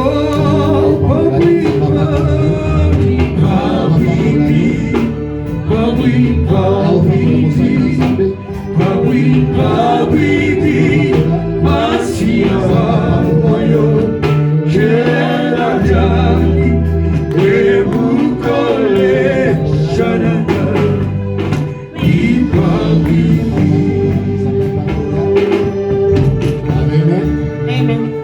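Gospel music with singing, voices over a steady band accompaniment.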